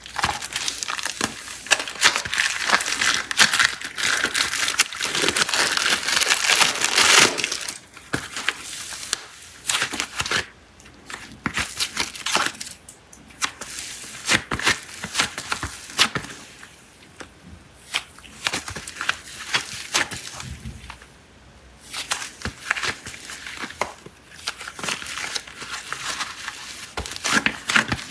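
Plastic wrappers on packs of super clay crinkling and tearing as they are opened by hand. It is a dense stretch of crinkling for about the first seven seconds, then sparser crackles and snaps with short pauses.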